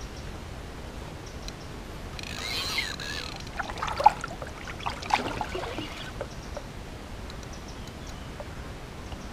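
A Penn spinning reel being worked while a hooked carp is played, with a cluster of short clicks and squeaks from reel and line between about two and six seconds in, the sharpest about four seconds in, over steady outdoor background noise.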